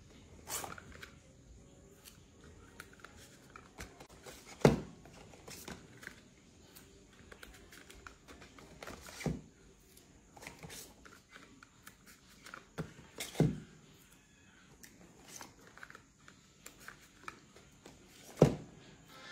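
Small cardboard boxes and bottles of vape liquid being handled and set down on a table: light rustling and clicking, with four sharper knocks spaced about four to five seconds apart.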